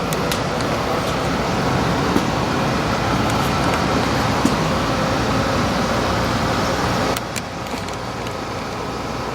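Steady road-vehicle noise with a low rumble, dropping a little about seven seconds in.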